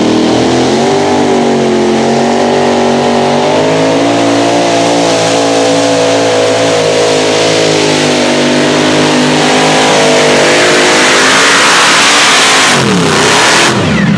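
Four NoHemi pulling tractor's supercharged, methanol-fuelled V8 Hemi engines revving up at launch and then held at high revs under full load while pulling the sled. Near the end the pitch drops sharply and comes back up.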